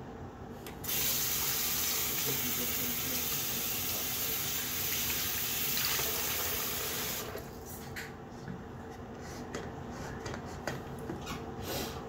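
Bathroom sink tap turned on about a second in, water running steadily into the basin and over hands, then shut off around seven seconds in. A few light clicks and handling sounds follow.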